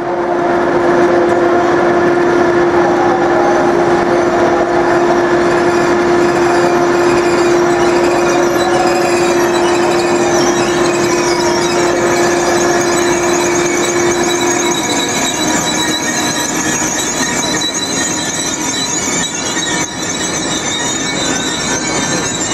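Train moving with its steel wheels squealing against the rails: several steady high-pitched tones at once over rolling noise. The lowest and strongest tone stops about fifteen seconds in while the higher squeals carry on.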